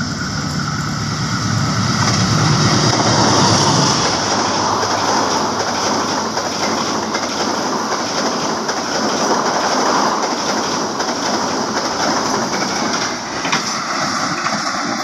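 A CC 206 diesel-electric locomotive and its passenger carriages passing close by at speed. The locomotive's engine drones low in the first few seconds as it goes past, followed by a steady loud rush of wheels and carriages on the rails.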